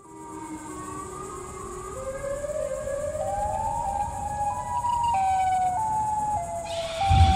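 Siren sound effect for the Siren Head creature: a wail of several tones together that rises slowly in pitch for about four seconds, then drops back in steps. A deep rumble comes in near the end.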